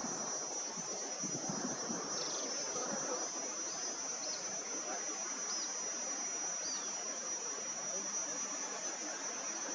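Steady high-pitched drone of insects, with a few short high chirps in the middle and a soft outdoor hiss underneath.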